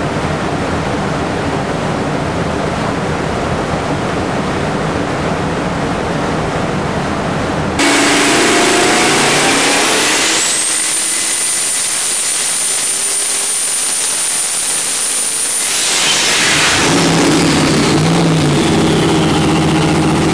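632 cubic-inch twin-turbo big-block Chevy engine with twin 88 mm turbochargers, running hard on an engine dyno. It runs steadily at first. About eight seconds in it suddenly gets louder and pulls, with a high turbo whistle rising and holding for about five seconds. Near the end the revs fall away.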